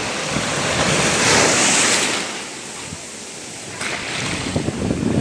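Ocean waves breaking and washing on a shore: a wave surges about a second in, falls away to a quieter lull, and the next wave comes in near the end.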